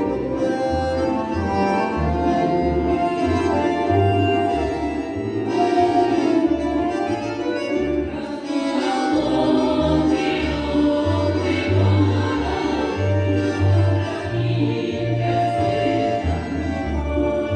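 Women's folk choir singing a Russian song together, accompanied by an accordion with a steady, pulsing bass.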